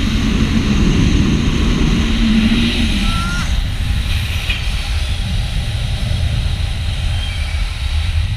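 Heavy wind rushing over an action camera's microphone during a fast tandem speed-wing flight: a loud, steady rumble, strongest in the first three seconds.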